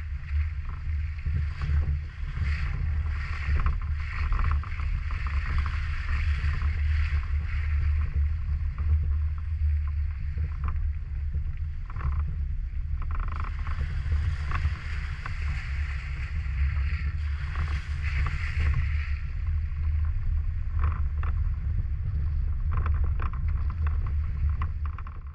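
Jeep Wrangler JKU Rubicon's engine running with a steady low drone as it crawls along a dirt trail. Irregular bursts of hiss and crackle from the tyres on dirt and leaves and wind on the microphone sit over it.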